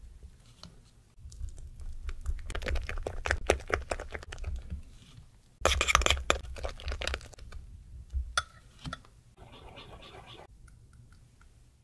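Spatula and spoon stirring thick cheesecake batter in ceramic bowls: wet scraping and squishing strokes with light clicks against the bowl. The loudest, densest stirring comes about six seconds in, as a thin metal spoon beats the white batter.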